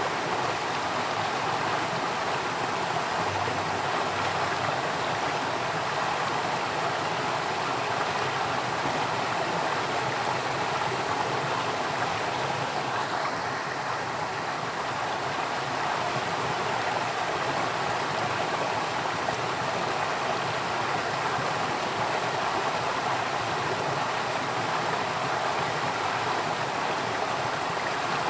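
Steady rush of flowing water, like a stream, running evenly without a break.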